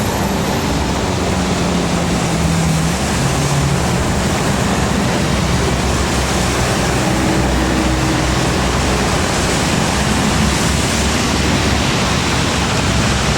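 Continuous loud road noise from heavy vehicles such as tour buses going by on the climbing road, with a low engine hum in the first few seconds; no telolet horn melody is heard.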